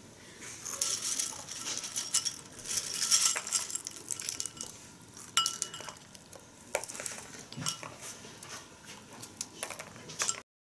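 Babies' hands rummaging in a bowl of puffed shrimp snack sticks: a dry rattling rustle of the snacks against the bowl, busiest in the first few seconds, then scattered sharp clinks, one with a short ring about five seconds in.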